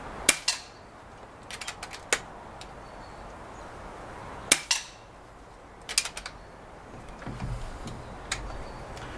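Moderated .22 FX Indy PCP air rifle firing twice, about four seconds apart, each shot a sharp crack with a fainter second crack just after it. Each shot is followed by a quick run of metallic clicks from the side-lever action being cycled to chamber the next pellet.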